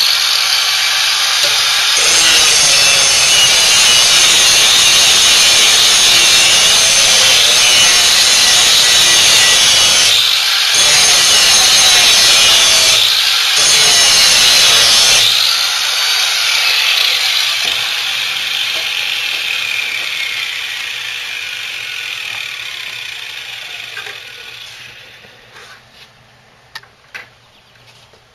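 Angle grinder with a grinding disc grinding the edge of a steel lawnmower blade held in a vise, taking metal off the heavier side to balance the blade. The grinding breaks off briefly twice in the middle, then the grinder is switched off and its whine falls away slowly as the disc spins down, followed by a few light knocks near the end.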